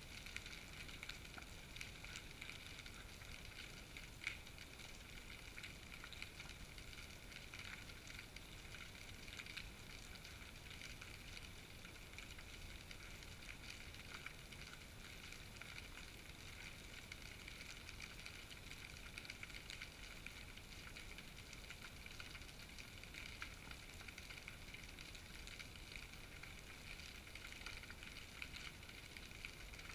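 Faint, steady underwater hiss with fine crackling, picked up by a GoPro sealed in its waterproof housing and hanging beneath a fishing float.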